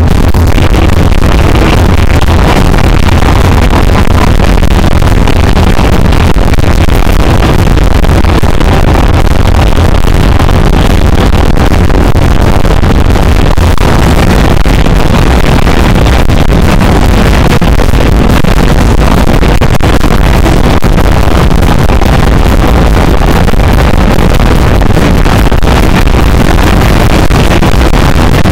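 Live rock band with drums, bass guitar, electric guitar and a singer, recorded so loud on a small camera's microphone that the sound is overloaded and distorted into a dense, bass-heavy roar.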